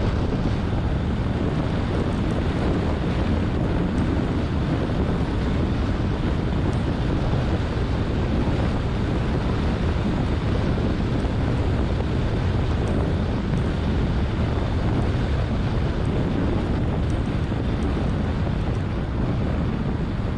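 Steady wind rushing over a car-mounted action camera's microphone at road speed, mixed with low tyre and road rumble; no engine note stands out.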